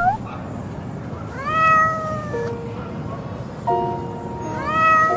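A cat meows twice, each a long call that rises and then holds, about a second and a half in and again near the end, over music with held notes.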